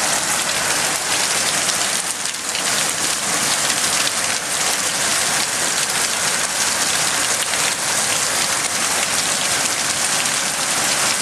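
Heavy hail pelting down: a dense, steady clatter of countless hailstones striking hard surfaces.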